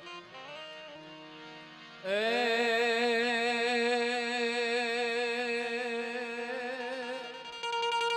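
Devotional folk music: after a soft instrumental phrase, a singer slides up into a long held vowel about two seconds in and sustains it with a wavering vibrato for about five seconds. Another held note starts near the end.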